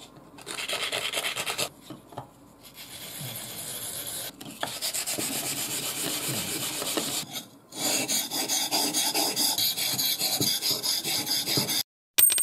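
Sandpaper scrubbed quickly back and forth over the rusty steel blade of a Seki Magoroku deba knife to take the rust off, in several runs of fast strokes with short breaks. A short bright chime sounds right at the end.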